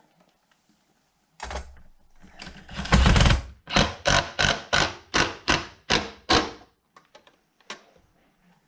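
Power driver driving sheet metal screws into a saddlebag: the driver runs for about a second, then gives about eight short trigger bursts in quick succession as the screw is snugged, followed by a few light clicks.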